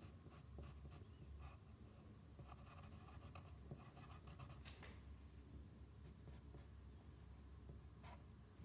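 Faint pencil strokes scratching on paper: short scratches in irregular runs, with one louder stroke a little under five seconds in.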